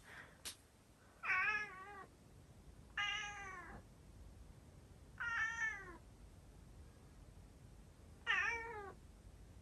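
Calico cat meowing four times, one call every two to three seconds, each call under a second long with a wavering pitch that drops at the end. The owner takes the cat to be asking to be let outside.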